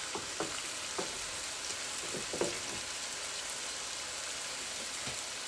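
Seasoned chicken breasts frying in hot olive oil in a skillet: a steady sizzle with a few faint pops and crackles.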